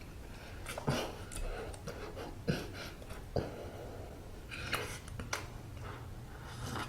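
Close-miked mouth sounds of someone eating a soft steamed bun: chewing and breaths, with a few sharp wet clicks.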